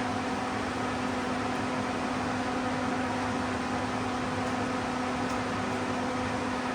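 Steady machine hum with an even, fan-like rushing noise that does not change; no welding or tool strikes are heard.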